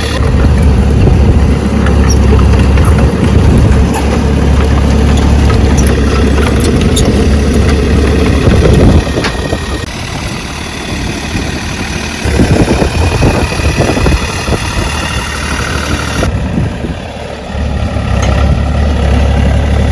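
Ditch Witch trencher's engine running loudly, easing off twice and picking back up.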